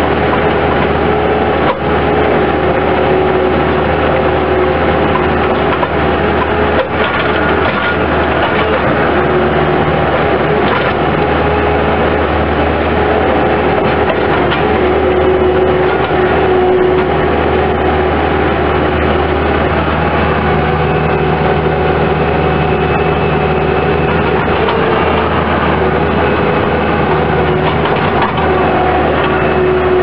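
Bobcat S185 skid steer loader's diesel engine running steadily, heard from the operator's seat, with a steady whine over it and a couple of brief knocks as the machine drives and works its loader arms.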